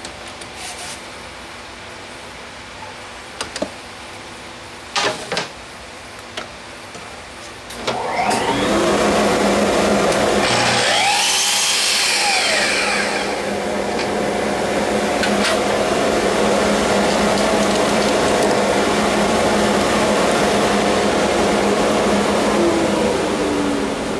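A Festool Kapex sliding miter saw is switched on about eight seconds in, its motor whining up to speed. The blade cuts through a thin wooden strip with a loud hissing rasp for a couple of seconds, then the motor winds down with a falling whine. A dust extractor keeps up a steady hum to the end, and before the saw starts there are a few light knocks of wood being handled.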